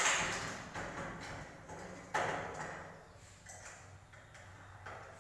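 Scraping and rubbing at the top of an aluminum door frame: a few noisy strokes, the loudest right at the start and another about two seconds in, then fainter ones.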